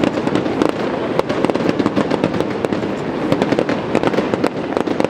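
Aerial fireworks bursting, a dense, continuous run of sharp cracks and pops in quick succession.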